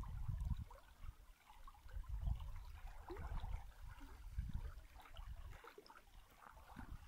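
Faint river water trickling and flowing, with irregular low rumbling underneath.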